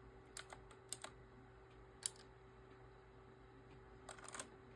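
Computer keyboard keys clicking as a value is typed in: a few separate presses, then a quick run of keystrokes near the end, over a faint steady hum.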